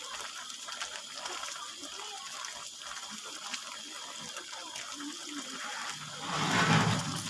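Water running, with a louder gush of water about six seconds in.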